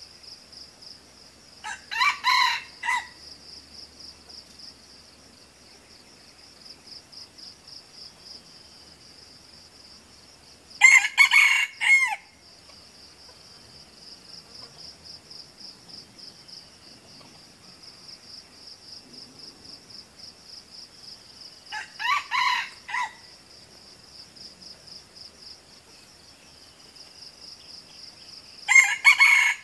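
Red junglefowl roosters crowing: four short, clipped crows spaced about nine to eleven seconds apart.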